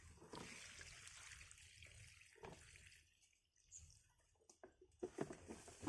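Faint trickle and splash of water being poured out, fading after about two seconds into near silence with a few light knocks.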